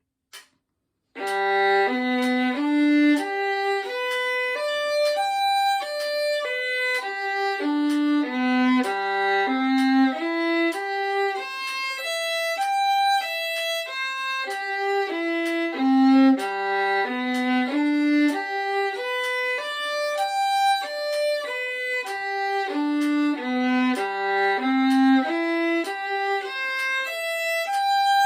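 Solo violin playing G major arpeggios: separate notes climbing and falling across the strings from the low G, over and over. The playing starts about a second in, after a short pause.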